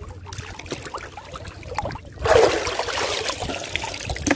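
Shallow seawater sloshing and trickling around people wading and feeling for clams, with a louder stretch of splashing from about two seconds in as an arm comes up out of the water.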